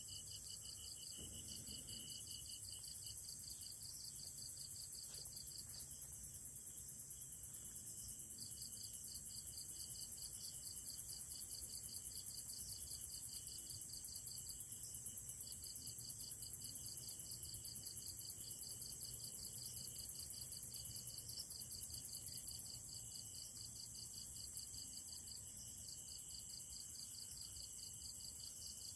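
Night insect chorus: crickets trilling in fast, even pulses, with a few short pauses, over a steady high hiss of other insects.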